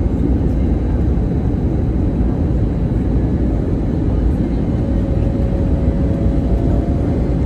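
Steady engine and airflow roar of an Airbus A321neo airliner, heavy in the low end, as heard by a passenger. A faint steady hum joins in about five seconds in.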